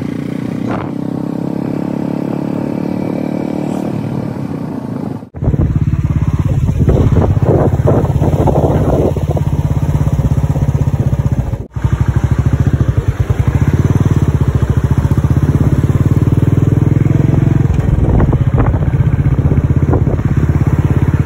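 Royal Enfield Bullet 350 single-cylinder motorcycle engine running steadily under way, with a fast even pulsing. The sound breaks off and resumes sharply about five seconds in and again near twelve seconds, growing stronger after the first break.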